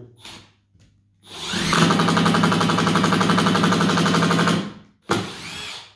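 Milwaukee M12 Fuel impact driver driving a screw in its self-tapping-screw mode. The motor spins up about a second in, then the driver hammers rapidly and evenly for about three seconds and stops, and a shorter burst follows near the end.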